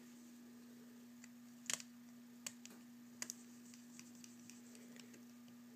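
Faint, scattered small clicks and ticks of a precision screwdriver working tiny screws into an iPhone's frame, fastening the dock connector assembly; the sharpest come as a quick pair about a second and a half in, with single ones about a second later and again near the middle.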